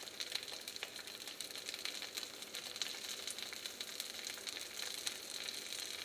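Sesame-coated prawns frying in hot peanut oil in a stainless steel pan: a steady sizzle with scattered crackles.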